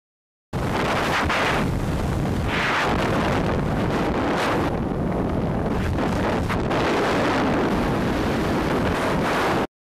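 Loud rush of freefall wind buffeting an action camera's microphone. It starts suddenly about half a second in and cuts off just before the end.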